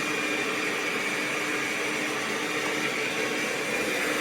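FIXR T20 Plus robot vacuum-mop running: a steady whir with a low hum and a faint high whine.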